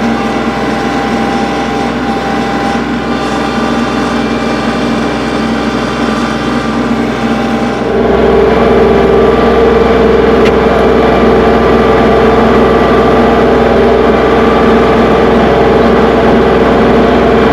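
An engine running steadily, which steps up louder about eight seconds in, with a strong steady hum added and more low rumble.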